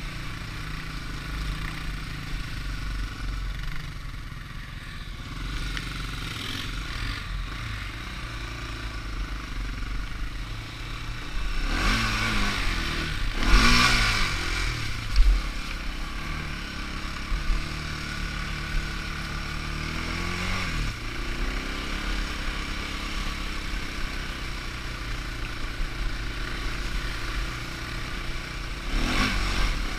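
A sport ATV's engine running while riding, with bursts of revving where the pitch rises and falls, most strongly about twelve to fourteen seconds in and again just before the end. Two sharp knocks stand out in the middle.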